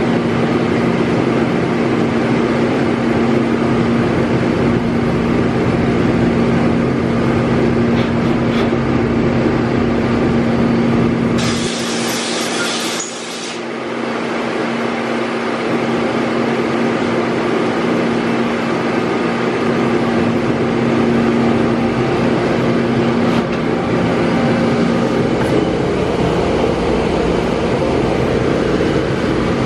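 Steady hum and rumble of industrial machinery running, with a constant low tone. About twelve seconds in, a short burst of hiss rises over it while the low rumble briefly drops, then the steady hum returns.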